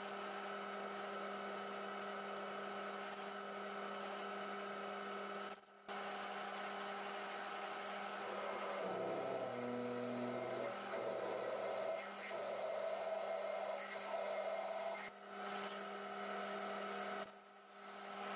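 Metal lathe running with a twist drill in the tailstock boring into a spinning steel bar, drilling the hole for an M12 thread: a steady machine hum, with cutting noise joining in about halfway through.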